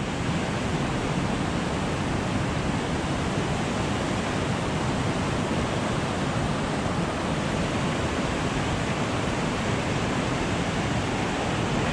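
Rushing creek water: the steady noise of a fast, turbulent current.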